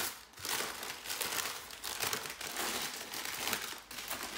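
Brown paper gift wrapping crinkling and rustling as it is crumpled and pulled open in many quick, irregular crackles, with a brief lull just after the start.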